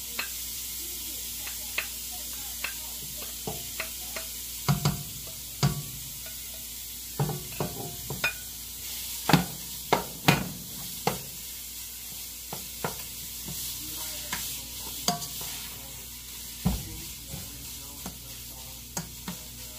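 Ground beef frying in a pot with a steady sizzle, while a utensil knocks and scrapes against the pot at irregular moments, most often in the middle of the stretch.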